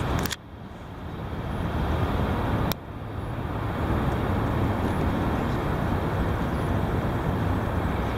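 Heavy wind buffeting the microphone: a loud, low rumble that cuts off abruptly twice and builds back up each time with the gusts.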